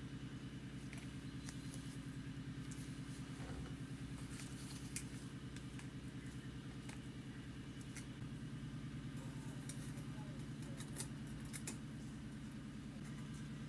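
A small motor running steadily with a fast, even pulse, with a few light clicks and taps over it, the sharpest about five seconds in and twice near the end.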